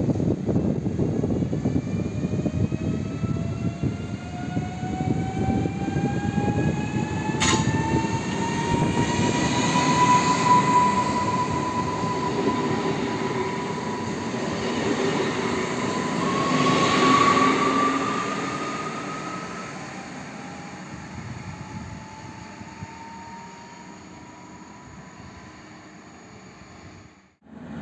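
Newag Impuls 36WEa electric multiple unit pulling away. The whine of its electric traction drive climbs steadily in pitch as it accelerates, over the rumble of the wheels on the rails. There is a single sharp click about a quarter of the way in, and the sound fades as the train draws away.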